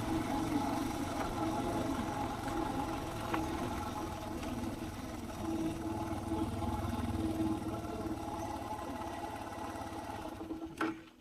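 Suzuki DR650's single-cylinder four-stroke engine running steadily, then cutting off suddenly near the end.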